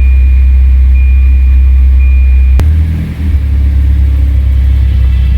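Volvo car with its engine running: a heavy steady low drone. Over it, a high beep repeats about once a second, like a warning chime, until a sharp click about two and a half seconds in. After the click the beep stops and the engine note shifts.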